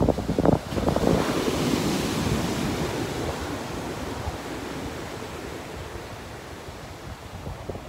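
Small ocean waves breaking and washing up the sand: a rushing wash swells about a second in and slowly fades. Wind buffets the microphone at the start.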